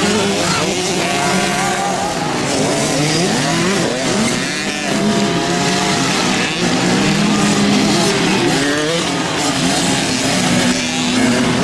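Several small two-stroke kids' motocross bikes revving at once, their engine notes rising and falling over one another as they race on the dirt track.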